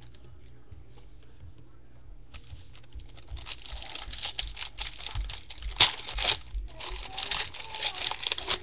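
Crinkling and tearing of a foil trading-card pack wrapper as it is handled and torn open. It starts about two seconds in and gets louder, with one sharp loud crackle near the middle.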